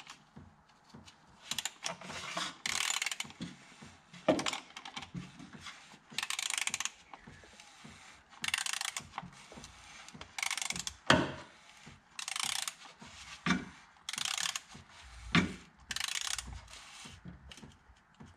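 Socket ratchet clicking in a dozen or so short bursts with pauses between, as the oil filter housing cap is snugged up with an oil filter cap socket.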